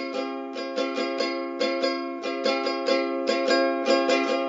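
Background music: a plucked string instrument, ukulele-like, playing a quick run of picked notes with no bass underneath.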